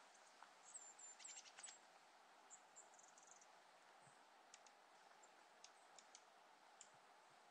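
Near silence: faint, steady outdoor hiss, with a few very high, thin chirps about a second in and scattered faint ticks.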